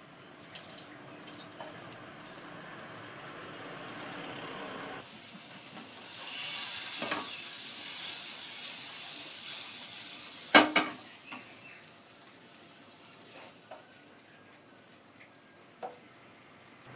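Food sizzling in a hot skillet: a steady hiss that starts about five seconds in and fades about seven seconds later. Two sharp clacks of a utensil or pan come near the middle and are the loudest sounds, with a few light ticks before and after.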